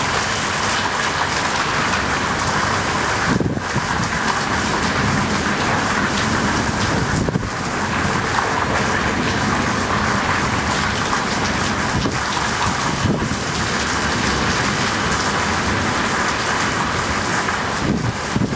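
Heavy downpour in a violent storm: a loud, steady, dense rush of rain falling on the street and buildings.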